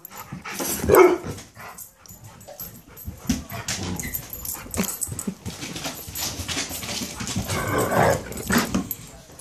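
A puppy and an older dog play-fighting, with constant scuffling of paws and bodies on carpet. Two short dog vocal outbursts stand out, the loudest about a second in and another around eight seconds in.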